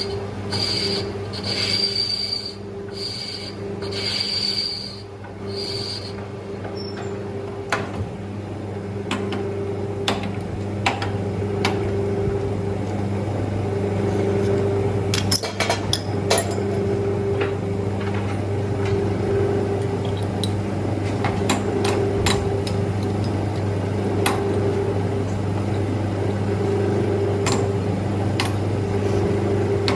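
Manual lathe running with a steady motor hum. For the first six seconds a high-pitched squeal comes in several short bursts, then scattered sharp clicks and ticks continue over the hum.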